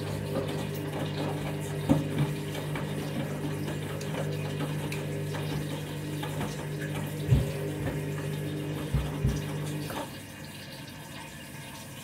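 Front-loading washing machine tumbling a wet, out-of-balance load: steady motor hum with water sloshing and a few dull thuds as the heavy towels drop in the drum. Near the end the motor hum stops.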